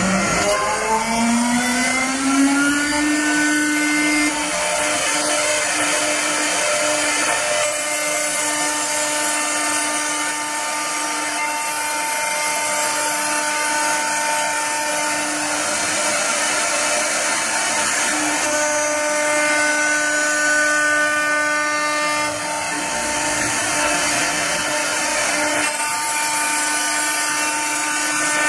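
High-speed router spindle on a CNC wood lathe spinning up with a rising whine over the first few seconds. It then runs at a steady high whine while cutting the turning wooden blank, with a hissing cutting noise over it.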